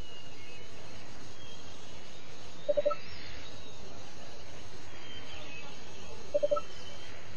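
Steady outdoor ambience with bird calls: a short, quick three-note call about three seconds in and again about six and a half seconds in, with faint higher chirps in between.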